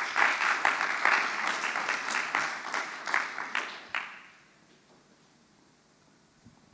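Congregation applauding, a dense patter of many hands clapping that dies away about four seconds in.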